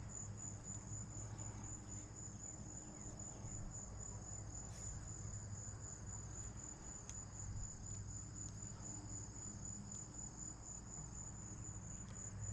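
Faint, steady high-pitched trilling of an insect chorus, the kind crickets make, running without a break, with a couple of faint ticks.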